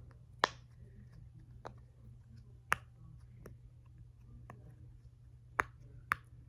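Bubbles of a jumbo fox-shaped silicone pop-it fidget being pressed, giving sharp single pops at uneven intervals, about half a dozen in all.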